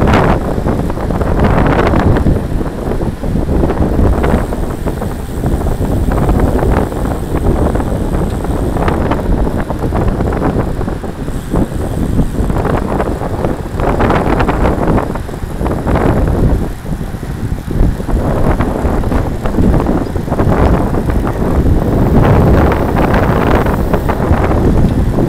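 Wind buffeting the microphone of a handlebar-mounted camera on a road bike at riding speed: a loud, gusting rumble that rises and falls.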